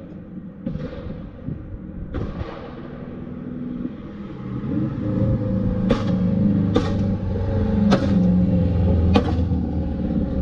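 2013 Subaru WRX's turbocharged 2.5-litre flat-four driving past with its GFB blow-off valve venting to atmosphere: two hissing whooshes in the first few seconds, then the engine growing louder as it approaches. From about six seconds in, four sharp exhaust pops about a second apart: backfiring caused by the valve venting all of its air to atmosphere.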